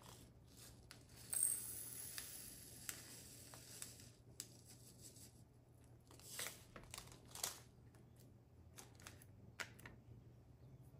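Faint handling noise of diamond painting drills: soft rustling and crinkling, with small plastic clicks as resin drills are tipped from a plastic drill tray into a small storage container.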